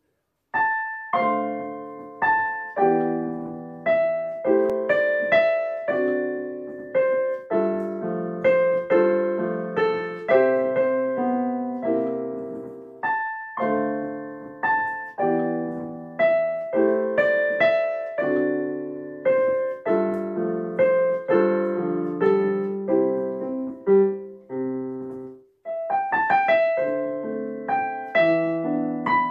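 Solo piano playing a slow piece, a melody over chords, each note struck and then dying away. There is a short break about 25 seconds in before the playing resumes.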